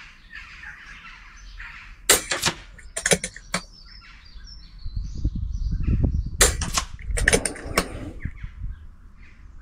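PCP air rifle firing: sharp cracks in two pairs, about two and three seconds in and again about six and a half and seven and a half seconds in.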